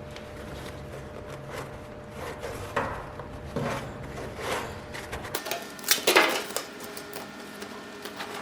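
Irregular knocks, clatters and scrapes of materials and tools being handled by hand, with the loudest cluster about six seconds in, over a faint steady hum.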